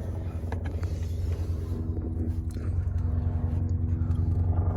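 A vehicle engine idling steadily, with a low, even, pulsing rumble, and a few faint clicks over it.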